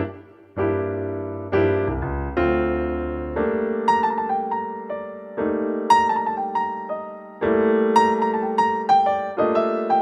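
Background piano music: held chords struck every second or two and fading, with a slow melody of single notes above them.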